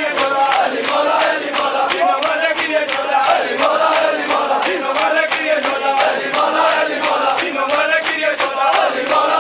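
A crowd of mourners beats their bare chests with open hands, the slaps landing in a fast, even rhythm. Men's voices chant a noha over the slaps.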